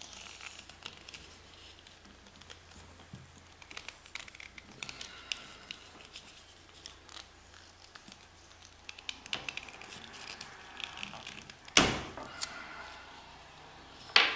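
Black electrical tape being pulled off the roll and wrapped tightly around a wooden tanto scabbard to clamp a glued crack, with small crackles, clicks and rustling. Two louder sharp knocks near the end.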